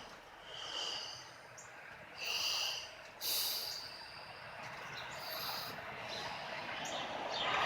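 A small bird calling: about four short, high-pitched calls, each about half a second long, with the one a little past the middle the loudest.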